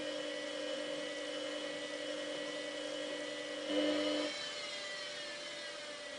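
Samsung WF8804RPA washing machine's drum motor whining steadily while it turns the drum to sense the load. About four seconds in it surges briefly louder, then cuts out and its pitch falls as the drum coasts down.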